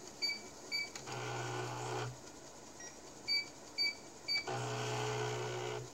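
Alignment-test beeps from a computer speaker, short and evenly spaced about twice a second, marking steady sector reads from the alignment disk. They are broken twice, about a second in and again near the end, by about a second of steady humming as the MPI Model 92 5.25" floppy drive's stepper motor moves the heads across the tracks.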